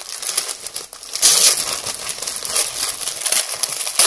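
Gift wrapping paper crinkling and rustling as a package is unwrapped by hand, with a louder crackle of paper about a second in.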